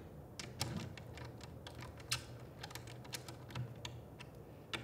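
Light, irregular metal clicks and taps as a camera top handle is seated on its mounting plate and a hex key is fitted into a mounting screw, over a faint low steady hum.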